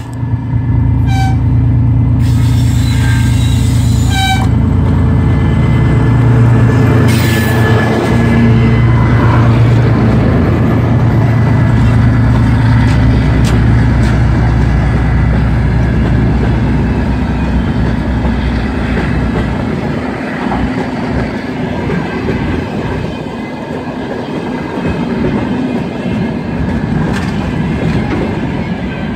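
Two-section 2TE10L diesel locomotive working hard up a steep grade, its two-stroke 10D100 diesels running loud and steady under full load, with short horn blasts in the first few seconds. It passes close, and from about halfway the engine fades as the empty freight cars roll by with clacking wheels.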